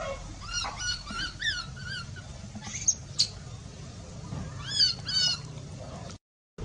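Baby macaque giving short, high-pitched, rising-and-falling distress squeaks: a cluster in the first two seconds and a quick run of them around five seconds in. These are the cries of a baby that is stuck and calling for help. The sound cuts out abruptly just before the end.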